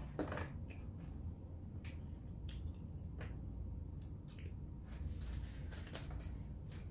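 Close-miked chewing and eating: wet, squishy mouth clicks and smacks at an irregular pace, over a low steady hum.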